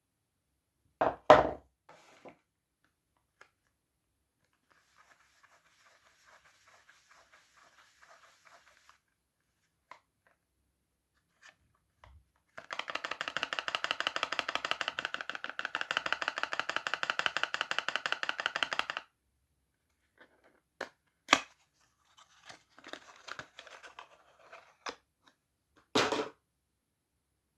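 Soap being unwrapped: paper and plastic packaging handled and torn open. A couple of knocks about a second in, faint crinkling, then about six seconds of fast, continuous scratchy tearing, followed by scattered crinkles and clicks and a knock near the end.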